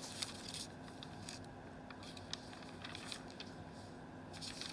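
Scattered rustling and crackling with sharp little clicks: hair being handled and worked at, over a faint steady low hum.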